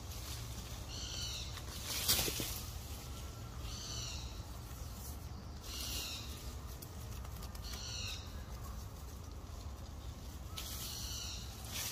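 A short, high-pitched animal call repeated about every two seconds, with a single sharp click about two seconds in.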